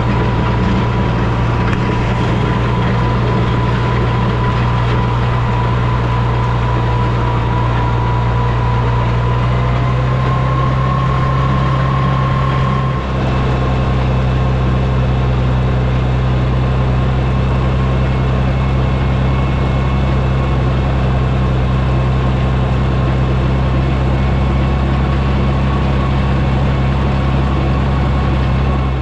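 International Harvester 460 tractor engine running at a steady speed, with a faint steady whine above it and a brief dip in level about halfway through.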